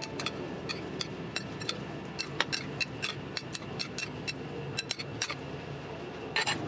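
Salad of salted egg yolks and coconut shoots being tossed by hand in a glass bowl: an irregular run of light clicks and taps against the glass.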